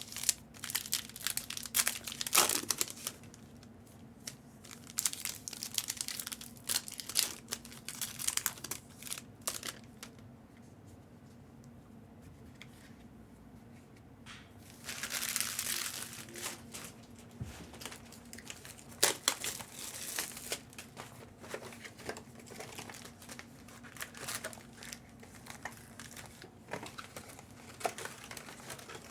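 Foil wrappers of Topps Chrome trading-card packs crinkling as packs are handled and torn open, in short irregular bursts with one longer rustle about halfway through, over a faint steady hum.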